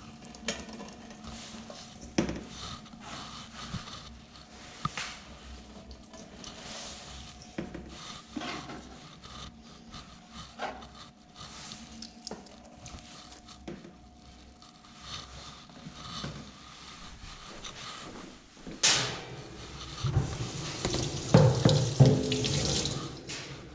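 Scattered light knocks and scrapes of hands and food on a plastic cutting board, then from about 19 s in a tap running and water splashing as the plastic cutting board is rinsed in a stainless steel sink, the board knocking against the sink.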